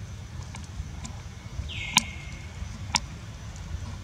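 Outdoor ambience with a steady low rumble. A short high call sounds once about two seconds in, and two sharp clicks follow about a second apart, the first the loudest.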